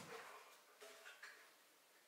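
Faint handling sounds of a wooden tray box and its handle frame: two light wooden knocks or scrapes about a second in, otherwise near silence.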